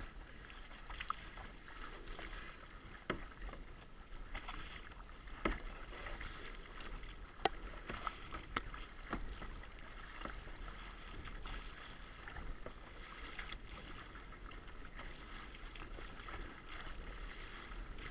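A kayak being paddled through choppy water: the paddle blades dip and splash in an uneven rhythm, water laps against the hull, and small splashes and knocks come at irregular intervals.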